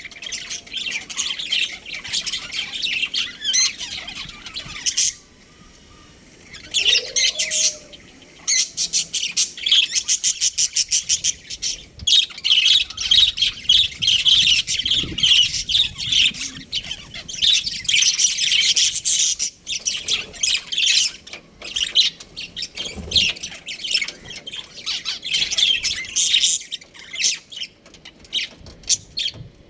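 Budgerigars chattering with rapid, high chirps and squawks, with a short lull a few seconds in.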